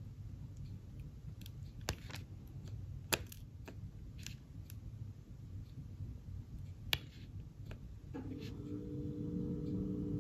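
Metal tweezers setting square resin diamond-painting drills onto the canvas one at a time: a few sharp, separate clicks a second or more apart. A faint steady hum comes in near the end.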